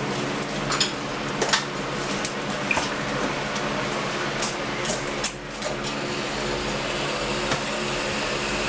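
Steady machine hum in the room, with a few scattered clicks and knocks of things being handled.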